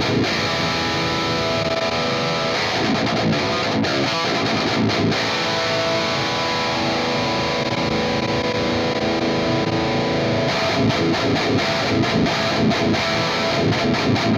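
Heavily distorted high-gain electric guitar riffing, played through a Two notes Le Lead preamp into a Two notes Torpedo C.A.B. M+ cabinet simulator set to a 4x12 California Standard C cabinet with KT88 power-amp tubes; the tone is heavy and weighty. The playing turns choppier about ten seconds in and stops sharply at the end.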